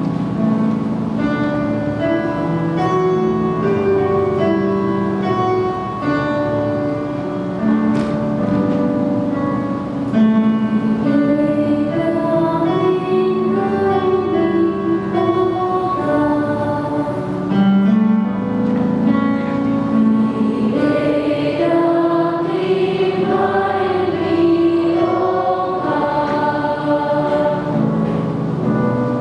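A choir singing a worship song, with held notes moving from pitch to pitch over instrumental accompaniment.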